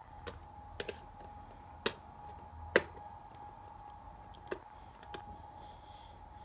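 Sharp, separate plastic clicks and taps, about seven of them with the loudest near the middle, as the battery cover of a battery-powered kettle is worked at in an attempt to pry it open.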